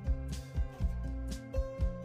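Background music with a steady beat, about two beats a second, over sustained tones.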